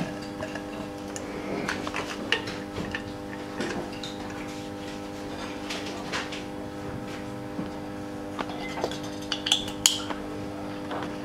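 Light metallic clicks and clinks as a compression tester's hose fitting is pulled out of one spark-plug well and threaded into the next, over a steady low hum. The clinks come thicker near the end.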